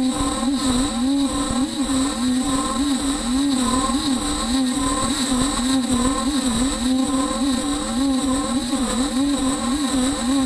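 Beaver HDZero CNC router milling an aluminum plate: the spindle runs with a steady high whine while the axis motors' tone keeps rising and falling as the gantry moves back and forth.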